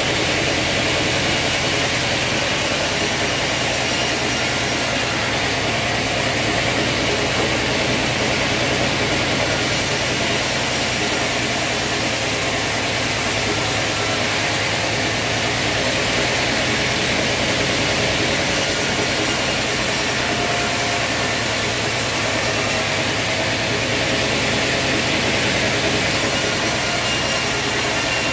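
Sawmill bandsaw running as logs are pushed through its blade: a continuous, even machine noise from motor, blade and the cut.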